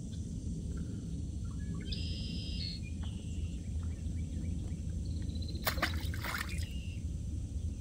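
A splash of water beside a small round boat about six seconds in, over a steady low rumble.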